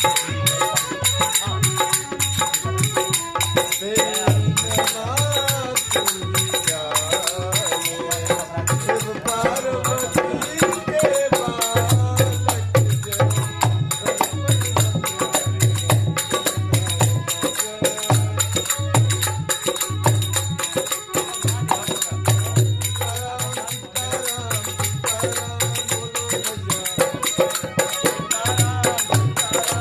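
Devotional bhajan music: a sung melody over a steady, regular low drum beat with hand percussion.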